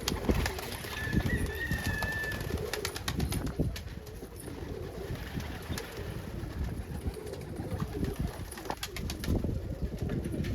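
Domestic pigeons cooing in a loft, low repeated coos throughout, with a brief high squeak about two seconds in and a few sharp clicks around three seconds in.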